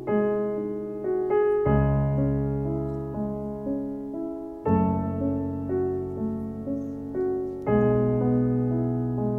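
Slow piano music: chords ring and fade, with a new low bass note struck about every three seconds.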